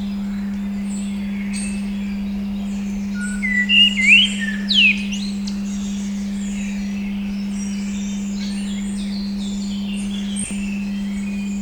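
A steady pure 200 Hz tone under recorded birdsong: many small birds chirping, with a few louder rising and falling calls about four seconds in.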